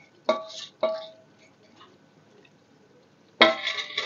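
A steel bowl clinks twice with a short ring as a spatula taps the last fried dry fruits out of it into a pan. Near the end comes a louder, longer ringing clatter of metal dishware.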